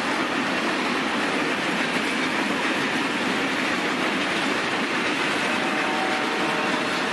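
Freight train wagons rolling past on the rails, a steady, unbroken rumble and rattle of steel wheels on track. Faint thin tones join about five and a half seconds in.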